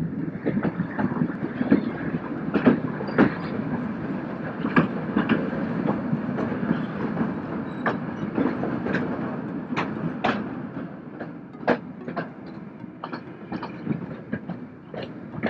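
Kalka–Shimla narrow-gauge train coaches running on the track, heard from an open coach doorway. There is a steady rumble of wheels on rail, with irregular clicks and knocks from the rail joints. It is loudest while passing through a tunnel and eases off near the end, once the coach is back in the open.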